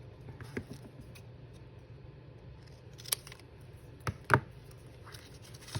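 Scissors snipping paper: a few separate short, sharp cuts, the loudest a quick pair about four seconds in.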